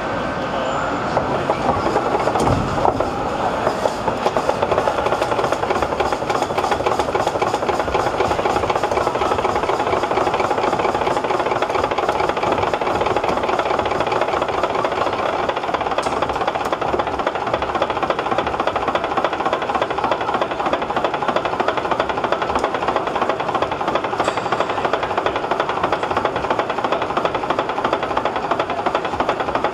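Small steam barring engine running, its gear pinion driving the toothed rim of a triple expansion steam engine's flywheel to turn the big engine over. It makes a loud, steady, fast mechanical clatter.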